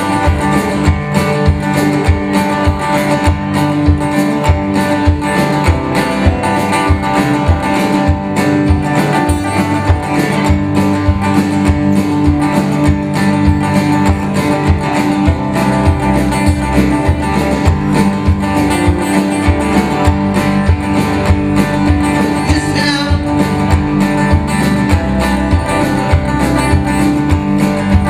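Rock band playing an instrumental stretch of a song live, with guitars over a steady beat.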